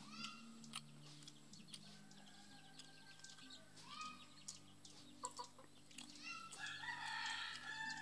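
Chickens clucking in short calls, with a longer, louder run of calls about six and a half to eight seconds in, over a low steady hum.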